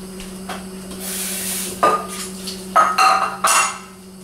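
Metal cookware clanking: a pot or pan and utensils knocked together, with brief ringing. One knock comes about two seconds in, and a quick cluster of them follows about a second later, after a short hiss. A steady low hum runs underneath.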